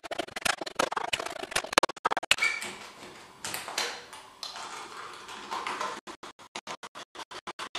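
Scratching, scraping and clicking of hand craft work on a paper cup and other materials at a desk, with a craft knife cutting in. About six seconds in it turns into a fast, even run of short clicks, about five a second.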